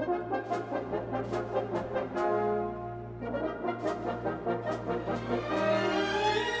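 Brass-led music: horns and trombones playing sustained chords, punctuated by sharp drum hits, with a rising swell near the end.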